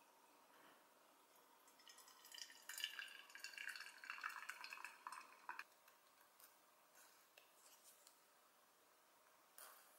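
Water poured from a gooseneck kettle's thin spout into a glass teapot with a steel infuser: a thin trickle splashing into the pot, starting about two seconds in and lasting about four seconds. Afterwards only faint small clicks.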